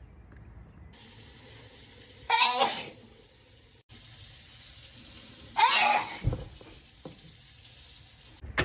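A person sneezing twice during a sneezing fit, the two sneezes about three seconds apart, with a faint steady hiss in the background.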